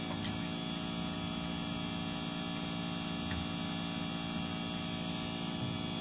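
Steady mains hum with many overtones coming through the speakers of an LA4440 amplifier: earth (ground) noise picked up when the USB player board is connected without a good ground link to the audio board. A short click sounds about a quarter of a second in.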